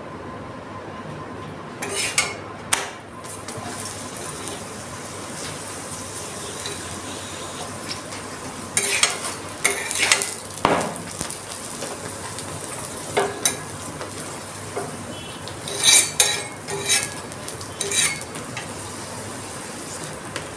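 Stuffed paratha sizzling on a hot iron tawa. A metal spatula clicks and scrapes against the pan several times, about two seconds in, around the middle and again near the end, as the paratha is turned and pressed down.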